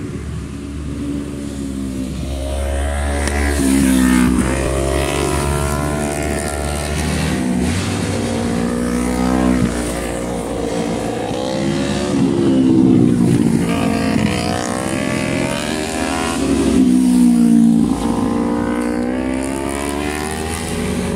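Motorcycle engines revving and passing on the road, the pitch climbing and falling again and again. The sound swells loudest at about 4, 13 and 17 seconds in.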